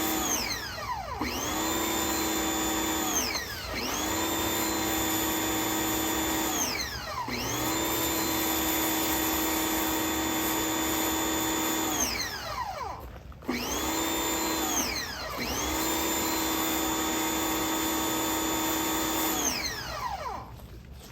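Electric pressure washer motor whining at full speed, then winding down each time the spray-gun trigger is released and spinning straight back up when it is squeezed again: six stops, the last one near the end.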